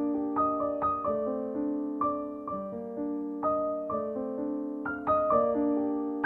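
Background piano music: single melody notes struck about every half second over held lower notes.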